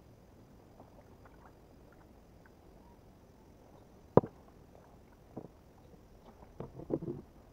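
A kayak being paddled over a quiet background. There is a single sharp knock about four seconds in, a lighter knock about a second later, and a short run of knocks and water noise near the end.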